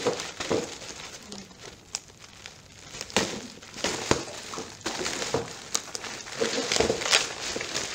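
Clear plastic packaging wrap crinkling and rustling as hands pull and handle it around a chair, in irregular crackles. It goes quieter for a couple of seconds, then picks up again with sharper crackles.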